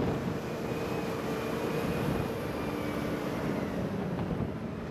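Heavy military truck's diesel engine running, a steady drone with a few held tones.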